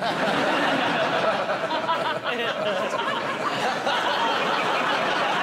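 Studio audience laughing in response to a joke, a dense, steady wave of laughter that sets in right after the punchline.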